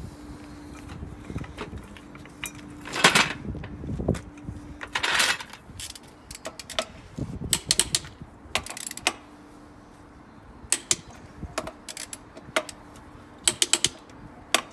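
Socket ratchet clicking in short runs as wheel nuts are tightened. Two louder, longer clattering noises come in the first few seconds.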